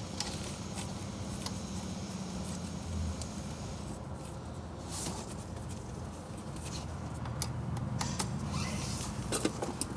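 Scattered light clicks and taps of a fuel pressure gauge and its hose being fitted to the fuel rail test port, over a steady low hum.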